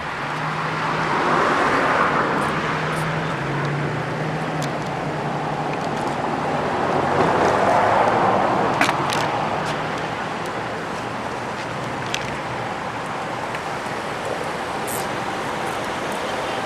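Street traffic: cars passing by, one swelling up about two seconds in and another, slightly louder, about eight seconds in, over a steady traffic hum.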